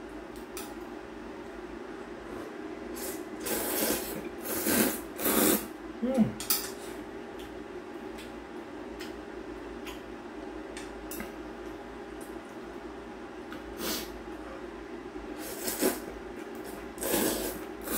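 A person slurping kalguksu noodles in several loud noisy bursts, a cluster about four to six seconds in and another near the end, over a steady low hum.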